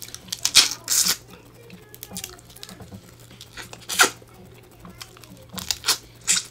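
Close-miked eating sounds: sharp, wet sucking and slurping as buttery seafood is sucked from the shell, in short loud bursts about half a second in, at one second, around four seconds and several times near the end.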